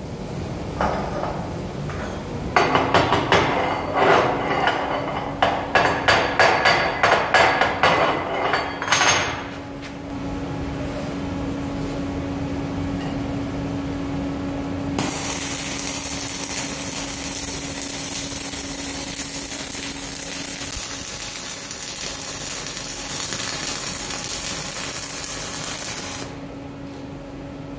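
TIG welding arc hissing steadily on stainless steel plate from about halfway through, then cutting off shortly before the end, over a steady machine hum. Before it, several seconds of sharp metallic knocks and clinks.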